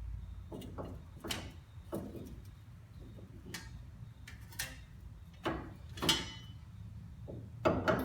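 Metal parts clinking and knocking as the new front wheel hub and bearing assembly and its dust shield are handled and fitted into place, about ten separate sharp knocks with short metallic ringing, the loudest about six seconds in and a quick pair near the end.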